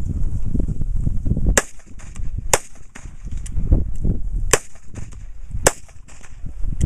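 Semi-automatic pistol fired in a series of single shots roughly a second apart, starting about a second and a half in, each a sharp crack.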